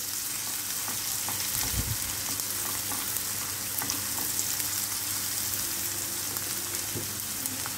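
Chopped onions sizzling as they sauté in hot oil and ghee with cumin seeds, garlic and dried red chilies, stirred with a silicone spatula in a nonstick pan. The sizzle is steady, with a few light scrapes and taps from the spatula.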